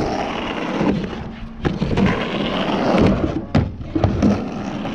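Skateboard riding back and forth on a mini ramp: the wheels rumble steadily, broken by several sharp knocks of the board, one about a second and a half in and three more close together near the end.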